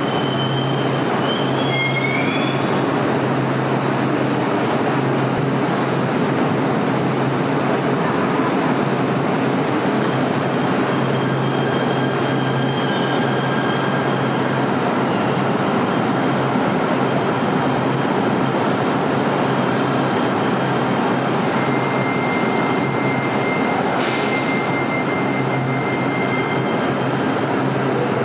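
LA Metro light-rail train running in an underground subway section, a steady rumble of wheels on rail with a low hum. Brief high gliding squeals of the wheels come in the first couple of seconds, and a thin high steady squeal lasts for a few seconds near the end, broken by one sharp click.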